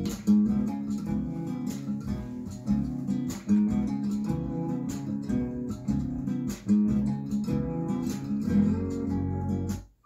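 Strummed acoustic guitar music with a steady rhythm. It cuts out briefly near the end, and a different piece starts.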